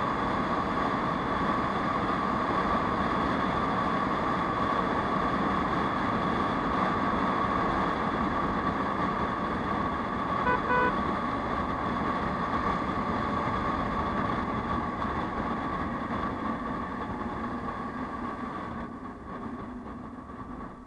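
Riding noise of an Aprilia SR 150 scooter at highway speed: steady wind and engine rush with a constant whine. About ten and a half seconds in, a horn gives two short beeps; near the end the noise drops away.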